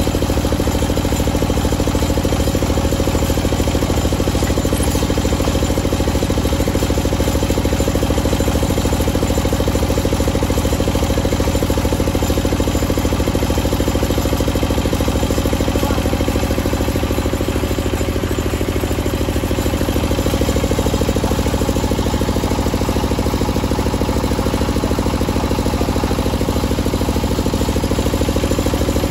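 Large table circular saw running steadily with its drive machinery, a continuous loud hum with a fine rapid beat underneath and no letup.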